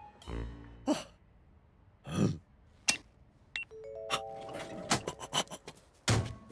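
Cartoon sound effects of a taxi meter being worked: scattered clicks and button presses, then a quick run of electronic beeps stepping up in pitch, followed by a rapid flurry of clicks and a knock near the end.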